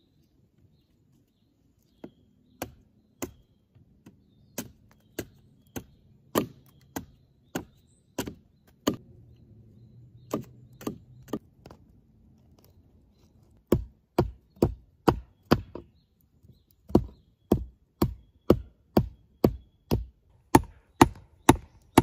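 A large blade chopping into a wooden branch: a steady run of sharp strikes, roughly two a second, with a break of a few seconds in the middle. After the break the strikes are louder and deeper.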